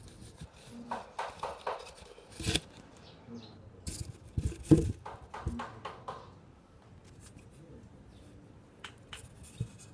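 Clicks and clacks of a Benelli M2 SP semi-automatic shotgun being handled, its action worked by hand. A run of light clicks, a sharper knock, then the loudest clacks a little before the middle, with a few more clicks near the end.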